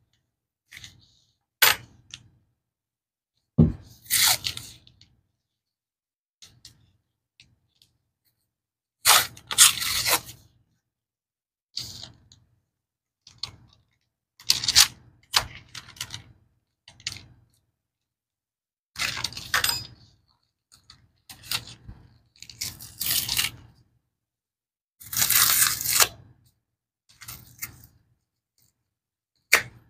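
Cardboard Argo cornstarch box being cut and torn open with a small blade. The blade scrapes and the cardboard tears in separate bursts a second or two long, with a few sharp clicks and silence in between.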